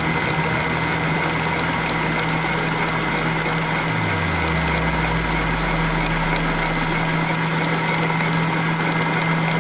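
Electric stand mixer motor running steadily at high speed, its whisk beating egg whites into meringue.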